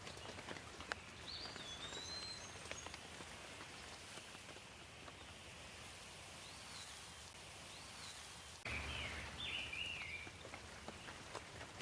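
Light rain pattering, with scattered drips, and a bird calling in short swooping whistles several times. About three-quarters of the way through, the rain suddenly gets louder and fuller.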